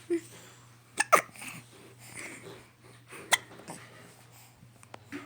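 Hiccups: a few short, sudden hiccup sounds, two close together about a second in and another a little past three seconds.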